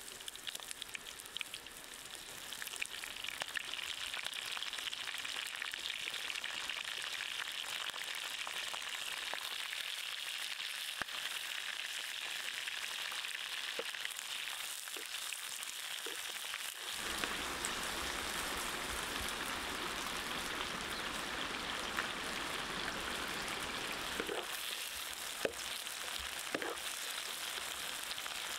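Hot oil sizzling steadily in a black wok as red chillies, lemongrass, ginger and lime leaves fry, with occasional light clicks and scrapes of a wooden spatula stirring them. A little past halfway the sizzle grows fuller.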